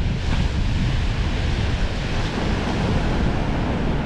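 Surf breaking on a sand beach, a steady wash of waves, with wind buffeting the microphone in an uneven low rumble.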